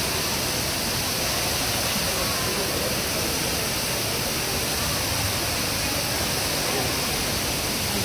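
Steady rush of a large indoor waterfall pouring from a glass dome into its basin, an even, unbroken wash of water noise.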